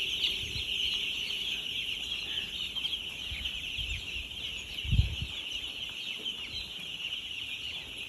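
A shed full of four-day-old broiler chicks peeping all at once, a dense, steady high chirping, with a brief low thump about five seconds in.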